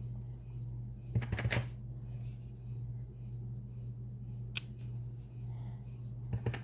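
Rubber stamp being inked and pressed onto card stock: a cluster of short taps and knocks about a second in, a single sharp click midway, and more taps near the end, over a steady low hum.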